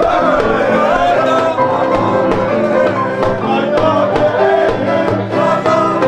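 Live singing with acoustic guitar accompaniment over a steady beat.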